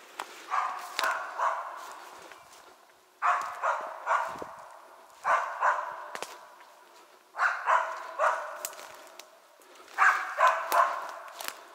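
Laika hunting dog barking steadily in short runs of two or three barks, a new run about every two seconds.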